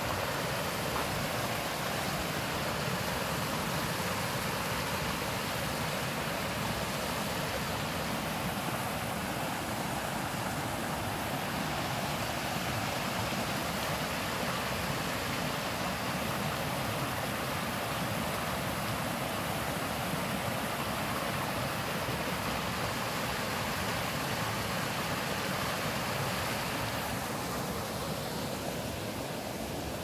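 Valley stream running over rocks: a steady rush of water that gets a little softer near the end.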